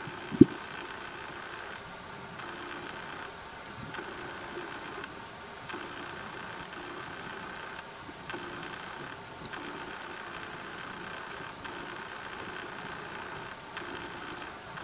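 Underwater ambience: an even hiss with fine ticks, and a hum that cuts in and out every second or so. A single sharp click sounds about half a second in.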